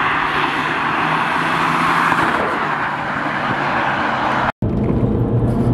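A car driving past on the road, its engine and tyre noise swelling and then easing off. The sound cuts off abruptly about four and a half seconds in and gives way to a steady low engine hum.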